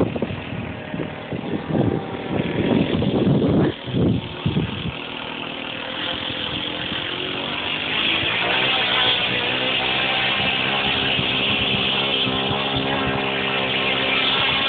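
Irregular low buffeting for about the first five seconds, then the steady drone of a radio-controlled model plane's engine coming in, growing louder and holding at a steady pitch.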